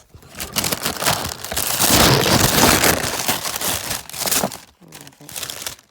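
Packaging crinkling and rustling as it is handled and opened, loudest about two seconds in and thinning out over the last second or so.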